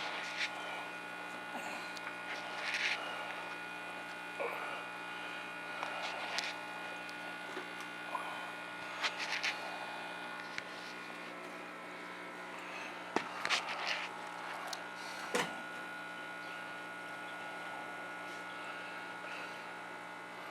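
Steady electrical hum of running aquarium equipment, with short light clicks and taps scattered through it, a small cluster about two-thirds of the way in.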